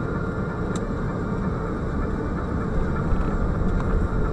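Steady low rumble of a car on the move: engine and road noise picked up by a dash cam inside the car.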